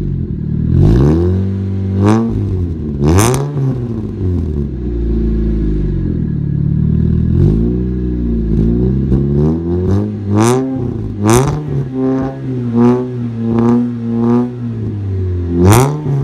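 The supercharged 2.0-litre four-cylinder of a Chevrolet Cobalt SS Supercharged revving in repeated blips at the tailpipe, soon after a cold start. The pitch climbs and falls a dozen or so times, with one longer hold in the middle, quicker short blips near the end, and a few sharp cracks between revs.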